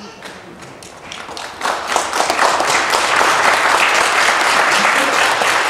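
Audience applause: scattered claps at first, swelling about two seconds in to dense, steady clapping.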